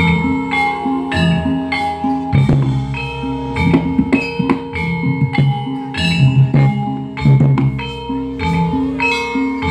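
Live Javanese gamelan music. Bronze metallophones ring out a repeating melody over low bass notes, with clusters of sharp kendang drum strokes.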